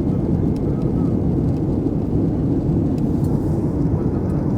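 Steady low rumble of a Boeing 737 MAX's CFM LEAP-1B jet engines and rushing air in flight, even throughout.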